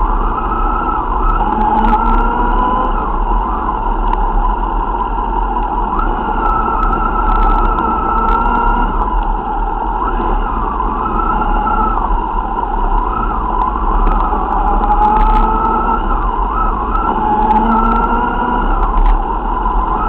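Motorcycle engines running at low speed in a slow procession: a steady deep rumble with an engine whine that rises and falls in pitch as the throttle opens and closes, and a few brief knocks.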